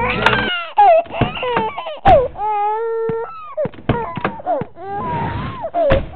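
An animated baby crying: short wails and sobbing cries that rise and fall in pitch, including one longer held wail, broken by a few sharp thuds.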